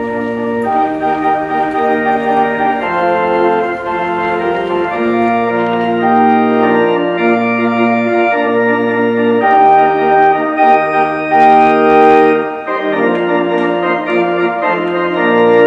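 Organ music: sustained full chords that change every second or so, held without decay.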